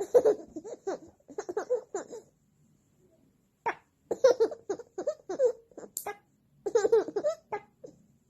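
A baby giggling and laughing in three bouts, with a short, sharp funny noise from his mother just before the second and third bouts.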